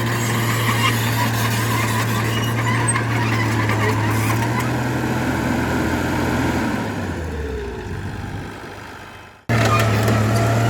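Heavy diesel engine of earthmoving machinery running steadily. About seven seconds in, its pitch and level slide down as it winds down to almost nothing, then the steady engine sound cuts back in abruptly near the end.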